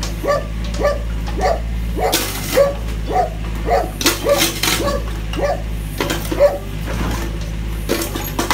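Mini excavator's diesel engine running steadily, with bursts of crunching and scraping around two and four seconds in as the bucket presses down on a broken ceramic toilet bowl. Over it a dog barks repeatedly, about two barks a second, louder than the machine.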